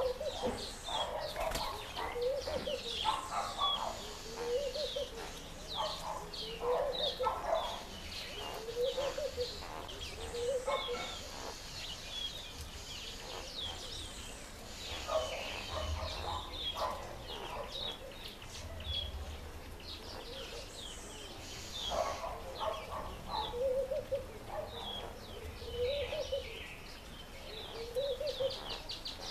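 Birds calling in a garden tree: a repeated series of low, guttural cooing phrases every second or two, pausing for a few seconds midway, over continual high-pitched chirping and twittering from small birds.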